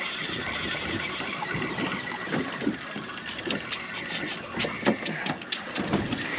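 Steady wash of sea and wind noise aboard a drifting boat, with scattered clicks and knocks from rod-and-reel fishing tackle. A thin high whine lasts the first second or so.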